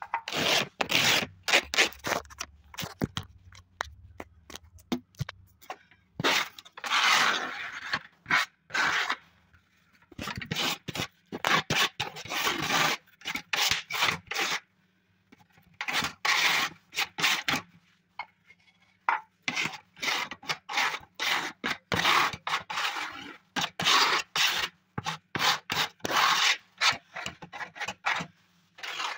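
Small red plastic scraper dragged in quick, repeated strokes along a glossy board, a rasping scrape that comes in runs of many strokes with short pauses between runs.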